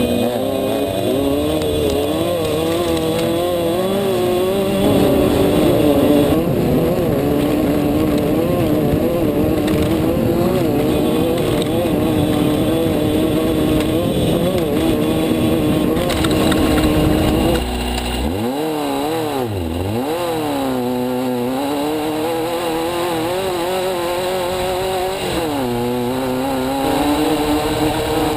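Off-road race car's engine heard from inside the car at speed, its revs rising and falling constantly, over a heavy rumble. About eighteen seconds in the rumble drops away and the engine note swoops down and back up several times, dipping again near the end.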